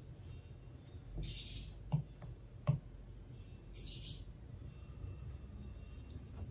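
Apple Pencil and fingertip working an iPad screen: two short scratchy strokes and two sharp taps, over a low steady hum.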